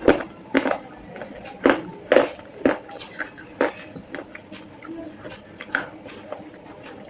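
Slate pencils being bitten and chewed close to the microphone: sharp, dry crunches at irregular intervals, about a dozen in all, most of them packed into the first three seconds.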